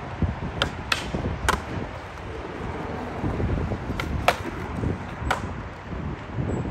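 Skateboard wheels rolling on concrete with a low rumble, broken by sharp wooden clacks of the board: three in the first second and a half, a pop and a smack around four seconds in, and one more about a second later.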